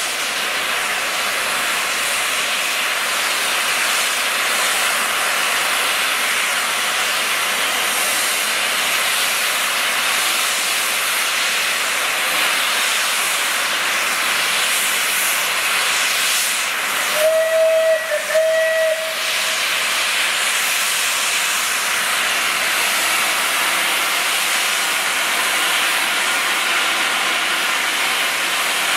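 Steam hissing steadily from a standing Bulleid Merchant Navy Pacific steam locomotive, 35028 Clan Line. A little past halfway its whistle sounds one blast of about two seconds, with a brief dip in the middle.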